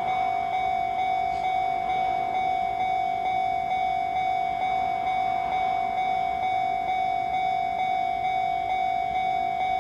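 Japanese level-crossing warning bell ringing steadily, an electronic chime struck about twice a second, signalling that a train is approaching and the crossing is closed.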